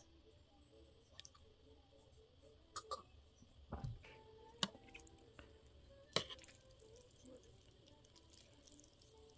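A few faint, separate clicks and taps of tableware, one of them a soft thump: a small glass and metal chopsticks knocking against a melamine bowl as noodles are stirred.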